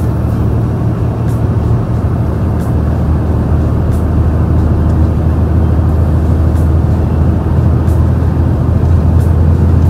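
Large truck's diesel engine growling under full throttle as it climbs a steep mountain grade, a deep steady drone on a stock exhaust, heard from the cab with the window slightly open.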